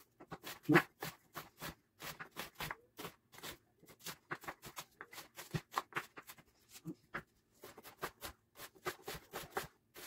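Kitchen knife slicing an onion on a wooden cutting board: a run of quick, crisp cutting strokes, a few a second, each a short crunch ending in a knock on the board.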